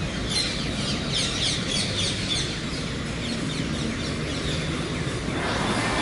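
A flock of green parakeets screeching as they come in to roost in street trees: many overlapping short, falling, harsh calls over a steady rumble of city traffic. The traffic noise swells near the end.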